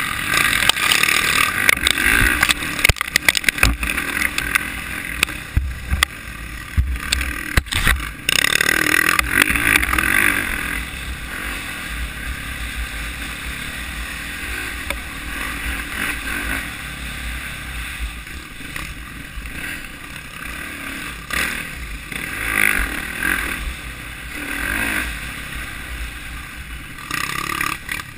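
Dirt bike engine running and revving under the rider, with wind rushing over the microphone. Over the first eight seconds or so there are sharp knocks and rattles as the bike crosses rough ground. After about ten seconds the sound settles to a steadier, somewhat quieter run, with a few brief swells of throttle.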